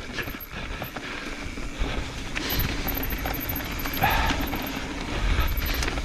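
Evil Wreckoning LB mountain bike riding fast down a dirt forest trail: tyres rolling over dirt, roots and leaves, with the bike rattling and clicking over bumps above a steady low rumble.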